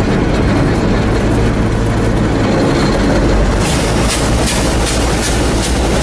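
Allis-Chalmers Gleaner combine's diesel running with the corn head engaged. About three and a half seconds in, a regular clacking starts, about three a second: the slip clutch ratcheting, set off by a corn cob, so the two outer chains don't run.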